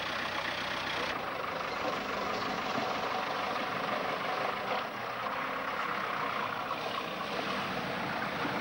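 Pickup truck engine running as the truck drives through a shallow rocky river, mixed with the steady rush of the water and splashing.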